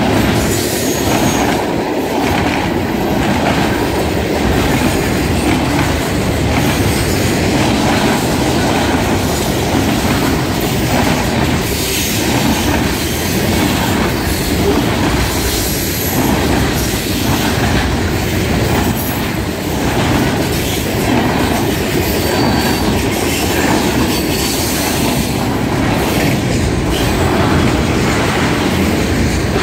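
Freight cars rolling past at speed: a steady loud rumble of steel wheels on rail, with the clickety-clack of wheels over rail joints.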